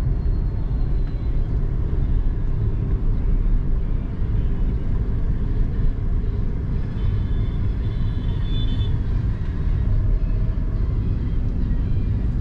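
Steady low road and engine rumble heard from inside a moving car's cabin, with a faint high-pitched tone briefly about seven to nine seconds in.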